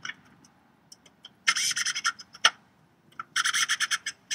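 Cordless drill driving screws into threaded rivnuts in a steel Jeep tailgate, in two short bursts with a rapid clicking rattle, about a second and a half in and again near the end.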